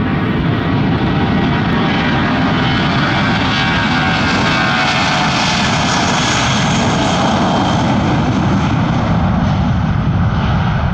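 Airbus A320-232's IAE V2500 turbofan engines at takeoff thrust during the takeoff roll, a loud steady jet noise. The hiss is sharpest about halfway through as the aircraft passes close by, then the sound turns to a deeper rumble as it moves away.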